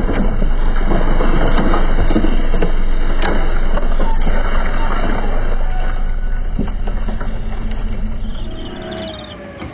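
Tank running over rough ground: a loud, steady rumble with scattered sharp cracks, fading out near the end.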